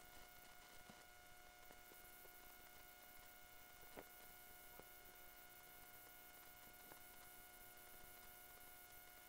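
Near silence: a faint, steady electronic hum with a few faint clicks, the loudest about four seconds in.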